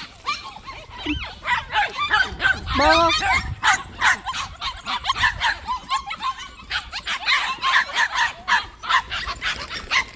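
Young white dogs barking and yipping in quick succession, many short calls one after another.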